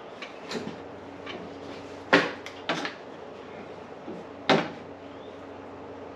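A few sharp knocks over a steady low hum, the three loudest about two seconds in, just under three seconds in and about four and a half seconds in.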